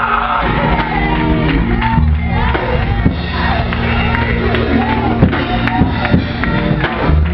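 A man singing into a handheld microphone over gospel instrumental backing that holds long, low chords. The voice rises and falls in drawn-out phrases.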